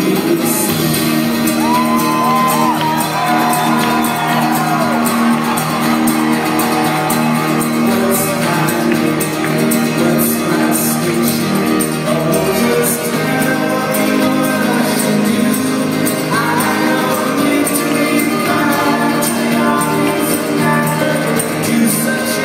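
Folk-rock band playing live with acoustic guitars and sung vocals, picked up from the audience with the reverberation of a large hall.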